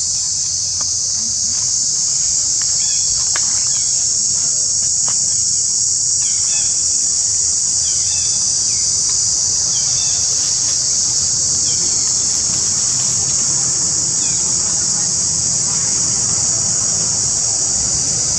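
Steady, high-pitched chorus of forest insects, unbroken throughout, with a few short chirps about halfway through.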